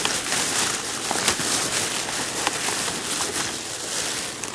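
Food wrapping crinkling and crackling as it is handled and pulled open, a steady rustle dotted with sharp little crackles.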